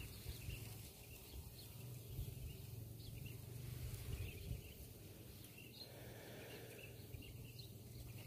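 Quiet outdoor ambience: faint, scattered short high chirps of small birds over a low steady hum.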